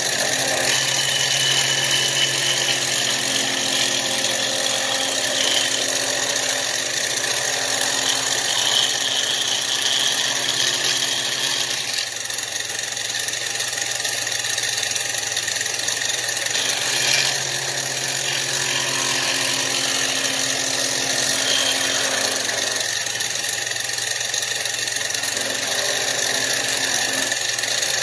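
Benchtop mill running steadily with a 5/16-inch bit cutting aluminum. The bit is hand-fed in a circle on a 1/8-inch pass, cutting a bearing recess in a torque-converter housing.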